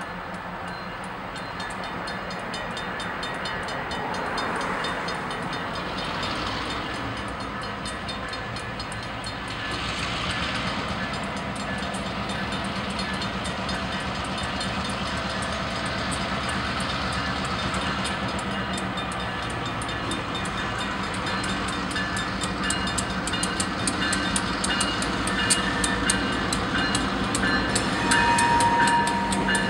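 Level-crossing bell ringing with even, regular strokes while a pair of diesel locomotives approach, their engines growing louder. Near the end the locomotive horn sounds briefly.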